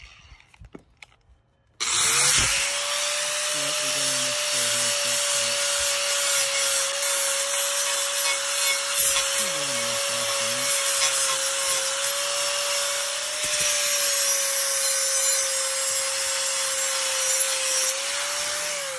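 Angle grinder switched on about two seconds in, its motor whine rising quickly to a steady pitch, then grinding the cutting edge of a steel mower blade with a grinding disc, a continuous grinding noise under the whine: sharpening the blade. Just before the end the motor is let off and the whine starts to fall.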